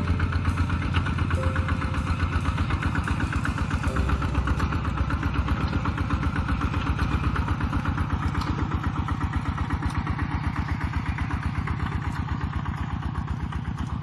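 Kubota RT-120 walking tractor's single-cylinder diesel engine running steadily under load while it pulls a disc plough through the soil, with a fast, even chugging beat.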